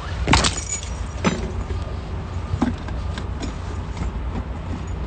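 Steady low rumble of a car cabin, with a few sharp knocks and rustles from a phone being handled. The loudest knock comes about a third of a second in.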